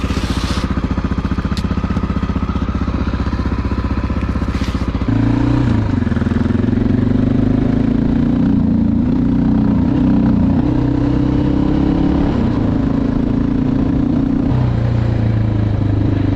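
A 2011 Honda XR650L's air-cooled single-cylinder four-stroke engine idles steadily. About five seconds in it pulls away and runs under load, its note rising and falling as it is ridden, with wind noise once moving. The engine now runs free of the valvetrain tapping that a replaced rocker arm has cured.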